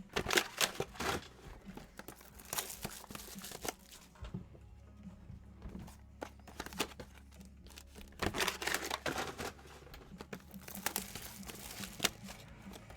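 Wrapper packaging crinkling and tearing in irregular bursts as trading card packs are opened by hand, with faint background music.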